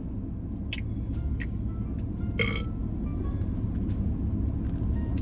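Loud open-mouthed chewing and lip smacking on a sesame-seed burger, a few short wet smacks, over the steady low road rumble of a car cabin.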